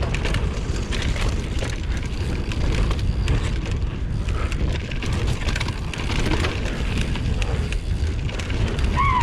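Mountain bike descending a dirt trail: wind buffeting the action camera's microphone in a loud steady rumble, with many small clicks and rattles from the bike and tyres over the ground.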